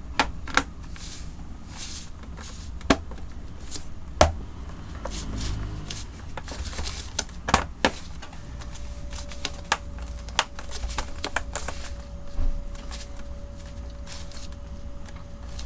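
Hard plastic UAG Plyo laptop case being handled and pressed onto a 16-inch MacBook Pro: irregular clicks and taps as the shell is fitted and snapped into place. The sharpest clicks come about 3, 4 and 7.5 seconds in.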